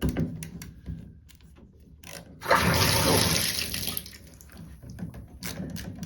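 Water rushing from the shower faucet for about a second and a half as the replacement Moen cartridge stem is turned on and back off. Small clicks and knocks of handling the valve parts come before and after it.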